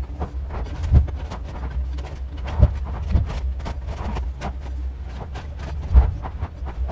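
Excavator demolishing a wood-frame house: a steady low engine rumble under the cracking and splintering of timber and debris knocking down. Several heavy thuds stand out, the loudest about a second in and near the end, as the bucket drives into the roof.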